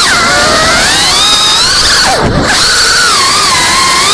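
FPV quadcopter's brushless motors whining loudly over a rush of propeller wind, the pitch gliding up and down as the throttle changes. About two seconds in, the whine drops sharply and swoops back up.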